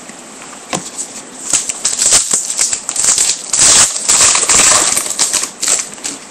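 Trading cards and their foil pack wrapper being handled: a run of crinkles and sharp clicks that starts about a second in and stops shortly before the end.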